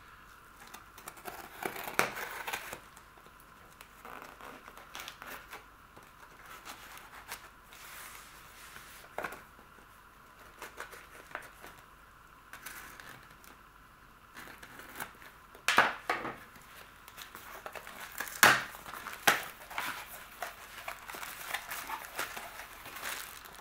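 Folding knife slicing through plastic packing tape on a cardboard box, with tape tearing and cardboard flaps being pulled open in scattered scrapes and sharp crackles. Near the end plastic air-cushion packing inside the box crinkles as it is handled.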